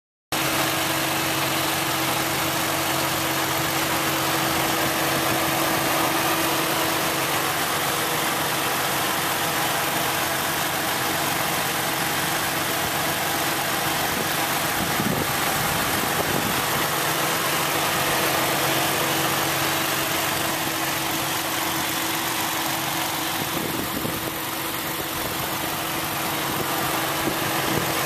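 2010 Ford Mustang's 4.0-litre SOHC V6 idling steadily, heard close up over the open engine bay.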